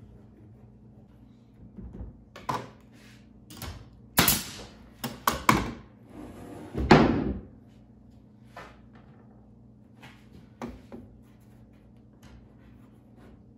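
Particleboard panels being handled and laid on a wooden workbench: a series of knocks and thuds, the loudest about four seconds in and about seven seconds in, the second with a short scrape just before it, then a few light taps.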